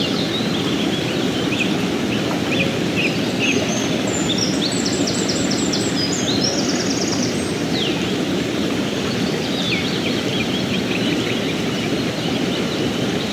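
Fast mountain river rushing over rocks, a steady even rush of water. Small birds sing over it, with chirps and quick trills, busiest in the middle of the stretch and again later on.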